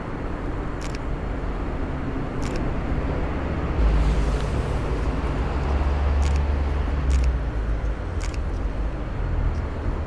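City road traffic: a steady hum of passing vehicles, with a heavier low rumble swelling about four seconds in and fading a few seconds later, and a few light ticks scattered through it.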